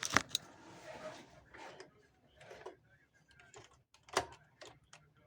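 Scattered clicks and small knocks of a sewing machine's stitch-selector lever being worked by hand, with a sharper click about four seconds in.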